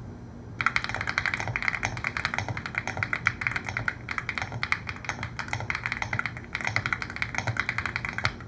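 Fast continuous typing on an Epomaker Feker Galaxy80 aluminum TKL mechanical keyboard with Feker Marble White switches, a polycarbonate plate and foam inside. The rapid key clicks start about half a second in.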